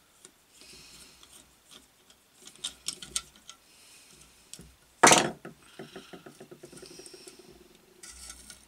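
Hand tool undoing a through-bolt on the end of a single-phase induction motor: rubbing and clicking, one loud sharp scrape about five seconds in, then a quick run of light ticks as the bolt is unwound.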